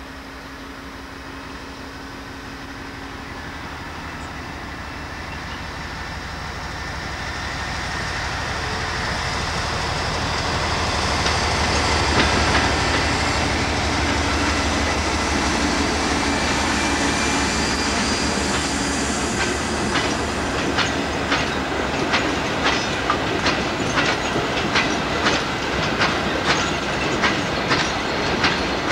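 BR Class 58 diesel locomotive with its 12-cylinder Ruston engine hauling a train of coal hopper wagons, its engine drone growing louder as it approaches and passes. From about two-thirds of the way in, the wagon wheels click steadily over the rail joints, about two clicks a second.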